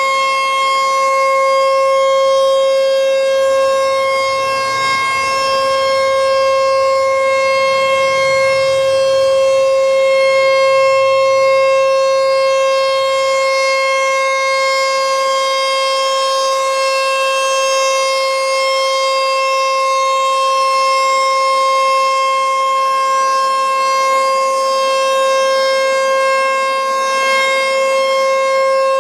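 ASC T-128 outdoor tornado warning siren sounding very loud at close range. It holds one steady pitch with many overtones, swelling and fading slightly as the rotating horn faces toward and away from the listener.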